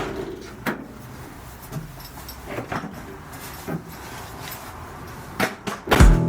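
Scattered short knocks and clicks over a low, steady hiss. About six seconds in, music starts with deep bass beats and a strummed guitar.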